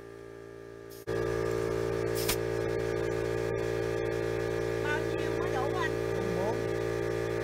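Air compressor running with a steady electric hum that gets sharply louder about a second in.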